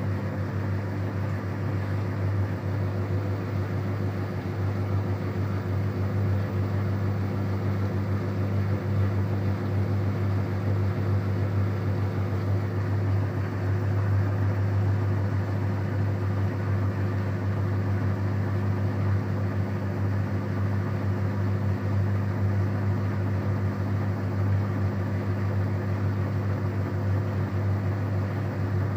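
Whirlpool FSCR90425 washing machine spinning at 400 rpm with an unbalanced load: a steady low hum from the spinning drum.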